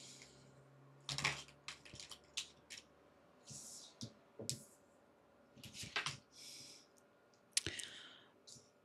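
Tarot cards being drawn from a deck and laid on a tabletop: scattered soft clicks and a few short slides of card against card.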